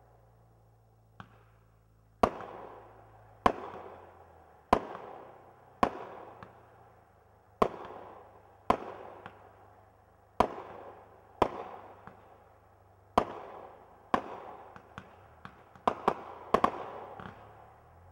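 Aerial fireworks bursting overhead one after another. There is a faint pop about a second in, then a sharp bang roughly every second, each fading away in an echo. Near the end the bangs come quicker and louder, several close together.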